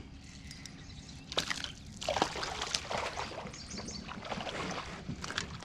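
Irregular splashing and sloshing of water with scattered light knocks, starting about a second and a half in, as a just-hooked bass is fought and brought to the boat.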